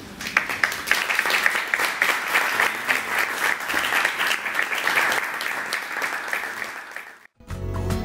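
Audience clapping for a few seconds, a dense patter of hand claps that thins out and then cuts off suddenly near the end, where music begins.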